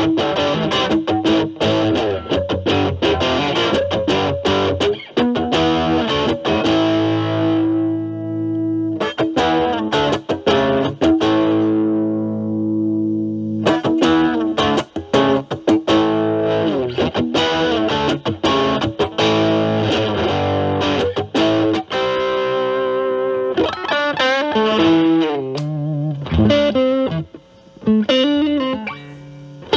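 Stratocaster electric guitar through an Ibanez Super Metal mini distortion pedal at low drive into a Marshall Valvestate's clean channel: a lightly distorted tone. Picked notes and chords, one chord left to ring out for several seconds, then single notes bent and shaken with vibrato near the end.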